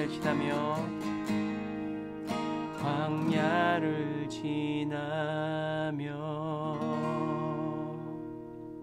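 A solo voice sings slowly over a strummed acoustic guitar, closing a worship song. The last sung note is held with vibrato and fades away near the end.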